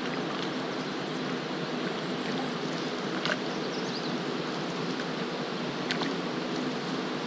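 Canoe being paddled on a river: a steady wash of moving water and paddle strokes, with a couple of light clicks about three and six seconds in.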